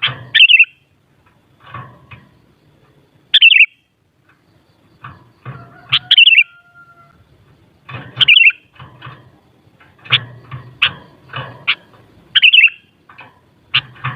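Sooty-headed bulbul (kutilang) calling in short, loud, bubbly phrases about every one to two seconds, with faint clicks and knocks between the calls.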